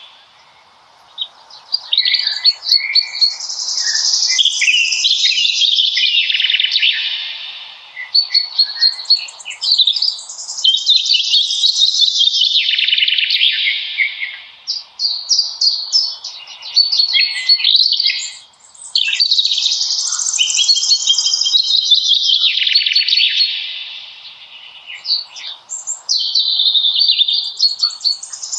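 Songbirds singing: long, high phrases of several seconds each, full of fast trills, broken by short pauses, over a faint steady hiss.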